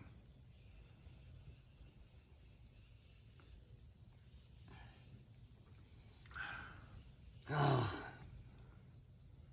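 A steady high-pitched chorus of insects in summer woods. About three-quarters through, a short vocal sound is briefly the loudest thing.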